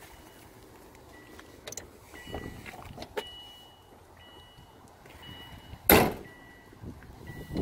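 A 2002 Subaru WRX's warning chime beeps over and over in short tones at two pitches while the driver's door stands open. A single loud thump comes about six seconds in.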